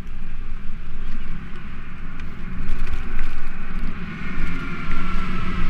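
Street traffic heard from a moving bicycle, with wind rumble on the camera's microphone. A faint steady whine comes in about halfway through.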